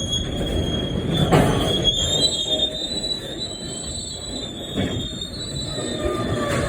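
Freight train of steel-carrying wagons rolling slowly past, its wheels squealing in a steady high screech over a low rumble, with a clank about a second and a half in and another near five seconds.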